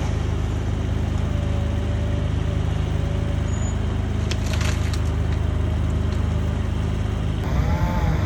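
A heavy engine on tree-removal equipment running steadily, with a short crackle of splintering wood about halfway through. The sound changes near the end.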